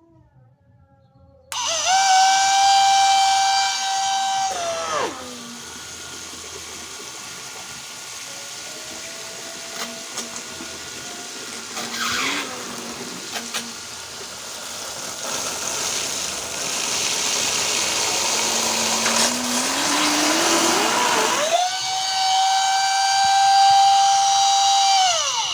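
775 12 V DC motor driving a 3D-printed water pump, running with a high, steady whine. About five seconds in, the pitch drops steeply as the motor slows under the load of the pump, and a rushing hiss fills the middle. Just after twenty seconds the whine climbs back to its high pitch, then cuts off at the end.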